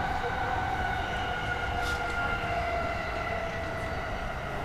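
Smooth hissing "shaa" running noise of a Tōkaidō Line electric train on freshly ground rail, heard inside an unpowered trailer car, over a low rumble. Faint whine of the neighbouring motor car's inverter runs under it as several tones slowly falling in pitch.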